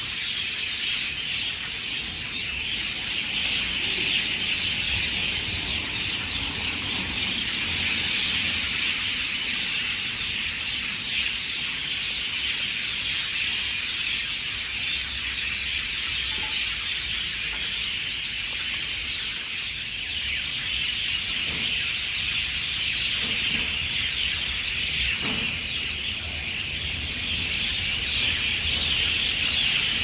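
A dense, steady evening chorus of many birds chattering and calling together in the trees.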